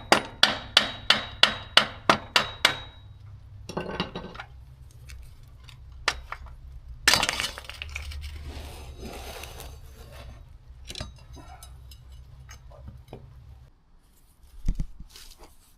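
A hammer striking metal in a rapid, even series of about a dozen ringing blows, roughly four a second, that stops about three seconds in. Shorter rattles and a louder scrape and clatter of metal parts and tools follow.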